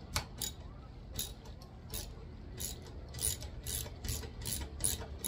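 Ratchet wrench clicking in short, irregular spurts while bolts are run in to test-fit them on a small fabricated metal plate, over a low steady hum.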